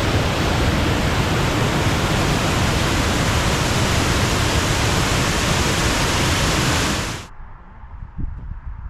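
Loud, steady rushing water that cuts off abruptly about seven seconds in. A much quieter outdoor background with a few faint knocks follows.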